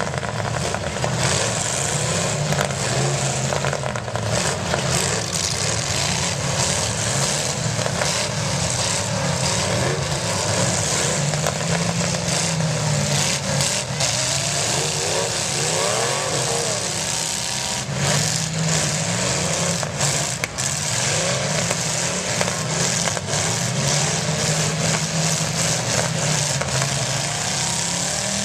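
Several demolition derby cars' engines running and revving, their pitch rising and falling, with sharp knocks now and then from the cars hitting.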